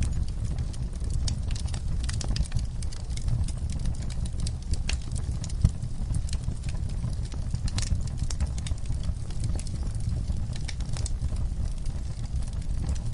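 Wood fire burning in a fireplace: a steady low rumble of the flames with frequent sharp crackles and pops, one louder pop near the middle.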